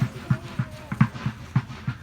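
Low, dull thumps in a steady rhythm, about three a second.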